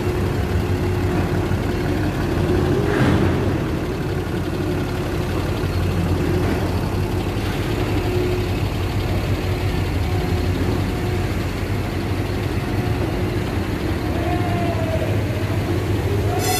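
Terminal tractor's diesel engine running steadily as it pulls a loaded container trailer past, with a brief knock about three seconds in.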